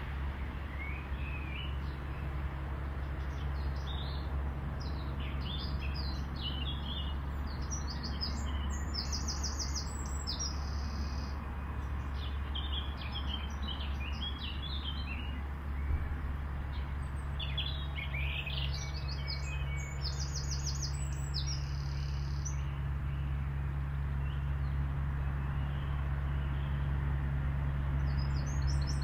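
Small songbirds chirping and singing, with a few bursts of rapid high trills, over a steady low rumble.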